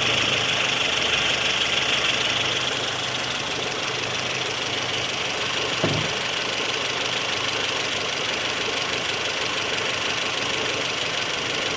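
Renault 1.2 16V engine idling with a high whir from the water pump that comes and goes. It is strongest in the first few seconds and then eases. The mechanic takes it for a worn water pump, a noise that turns continuous once the engine warms up.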